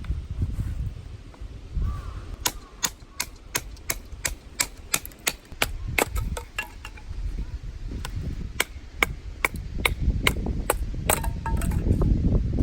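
A series of sharp, irregular clicks and knocks, about two or three a second, over a low rumble that swells near the end.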